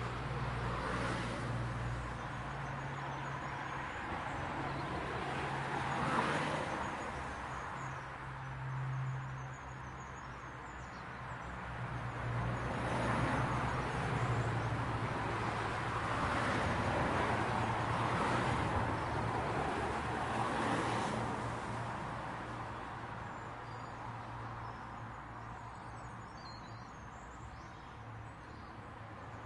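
Residential street traffic: cars passing one after another, each a rise and fall of tyre and engine noise, about six passes, over a steady low hum. Faint high chirps come in near the end.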